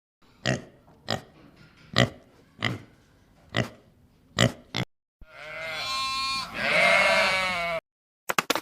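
Farm animal calls: seven short, abrupt calls about two-thirds of a second apart, then one long, wavering call lasting about two and a half seconds.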